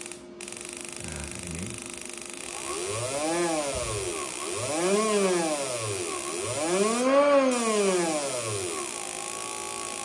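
Small motorcycle engine on a programmable CDI ignition, just started and running, blipped on the throttle three times. Each rev rises and falls back to idle, and the last is the highest.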